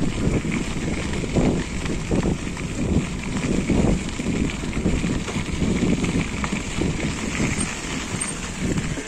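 Mountain bike ridden over a rocky trail: irregular knocks and rattle from the bike, with wind buffeting the microphone.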